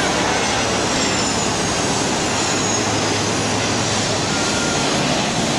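Fokker 100 jet's two rear-mounted Rolls-Royce Tay turbofans running as the airliner touches down and rolls out on the runway: a steady jet roar with a faint high whine falling in pitch.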